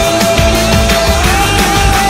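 Loud rock music with drums, in an instrumental break of a song, under a sustained lead melody note that steps up in pitch about a second in.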